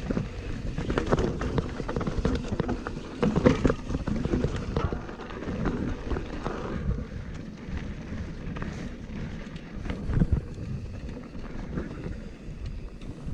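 Nukeproof Mega 297 enduro mountain bike ridden fast over a rocky desert trail: tyres crunching over gravel and stones, the frame and drivetrain rattling and clattering, with wind buffeting the microphone. Two harder knocks from hits on rocks, about three and a half and ten seconds in.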